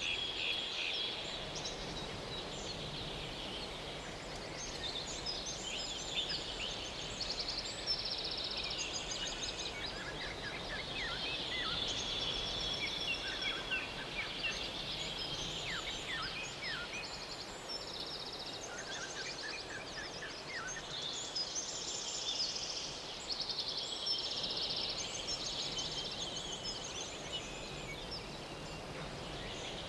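Outdoor ambience: steady background noise under many high chirps and rapid pulsing trills from small calling animals, coming and going throughout.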